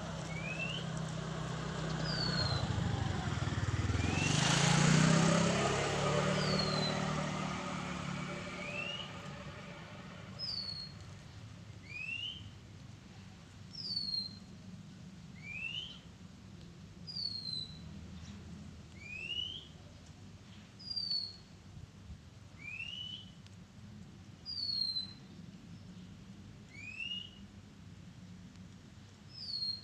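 Oriental magpie-robin singing a repeated two-note whistled phrase, a rising note then a higher falling one, about every couple of seconds. During the first ten seconds a passing vehicle swells and fades, loudest about five seconds in.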